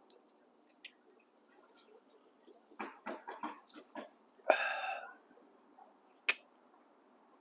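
Caged quail moving and pecking: scattered light taps and clicks, a cluster of short sounds a few seconds in, and one brief call about halfway through.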